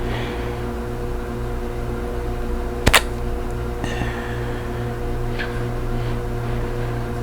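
A woman's single sharp hiccup about three seconds in, a natural, involuntary hiccup from swallowing a drink wrong, over a steady hum.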